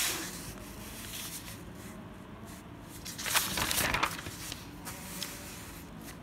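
Notebook pages being turned and pressed flat by hand: a short paper rustle at the start and a longer, louder one a little over three seconds in.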